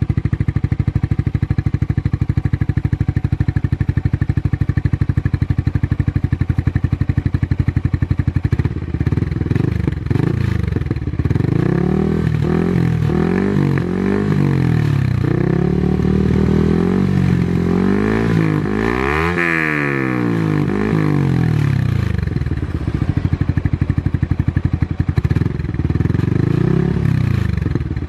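Yamaha R15 V3's single-cylinder engine through a Proliner Carbon Short TR-1R racing exhaust with its dB killer fitted: a steady, muffled idle, then from about eight seconds in it is blipped and revved repeatedly, the highest rev coming about two-thirds of the way through, before it drops back toward idle near the end.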